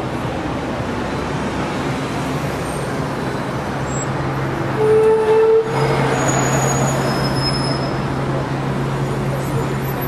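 Road traffic noise with a steady low engine hum, and a short loud single tone about five seconds in.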